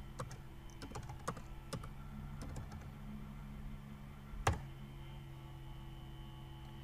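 Computer keyboard keys tapped as numbers are typed, several quick keystrokes in the first two seconds and one louder click about four and a half seconds in, over a steady low hum.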